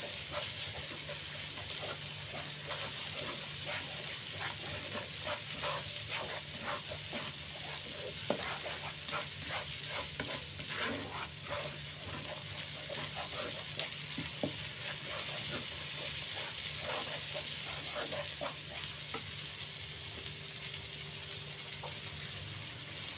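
Blended spice paste sizzling in hot oil in a nonstick wok, with a plastic spatula stirring and scraping it in many quick strokes, busiest through the middle and sparser near the end.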